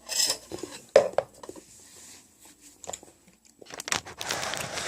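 Close-up eating sounds: chewing and biting food, with a few sharp clicks, the loudest about a second in, and busier chewing noise near the end.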